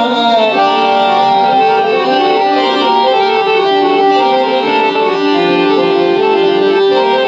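Instrumental interlude between verses of a Gujarati devotional bhajan: a melody instrument plays a line of steady, held notes stepping from pitch to pitch, with no singing.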